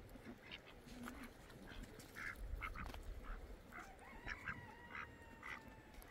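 Faint calls of farmyard fowl: short calls repeated about three times a second.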